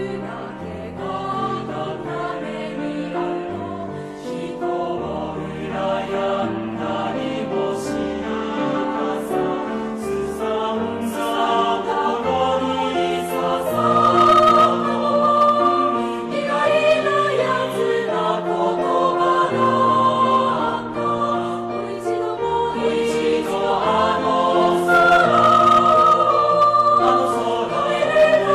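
A choir singing a Japanese choral song in sustained chords, growing louder about halfway through.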